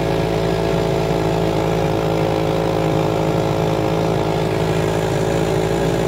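Homemade outboard motor built from a two-stroke chainsaw engine, running steadily at a constant speed as it drives the boat.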